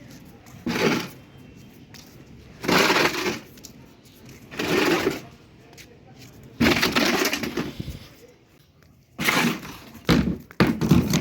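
A German Shepherd chewing a toy, with crunching and cracking in about six short bursts and pauses between them.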